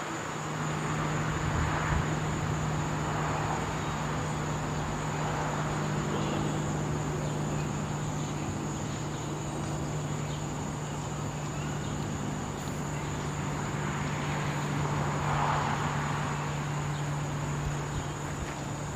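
Distant drone of a Quest Kodiak 100's five-bladed propeller and PT6A turboprop flying high overhead: a steady low hum with a rushing sound that swells and fades, loudest about a second in and again about fifteen seconds in. Insects keep up a steady high-pitched buzz over it.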